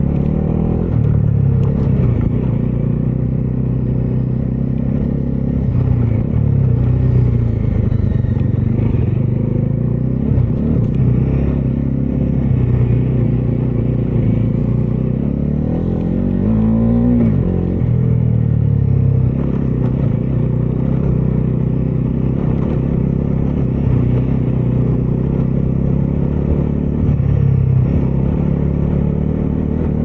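Bajaj Dominar 250's single-cylinder engine running under way, its note rising and falling with the throttle. About sixteen seconds in the engine note climbs sharply, then drops back.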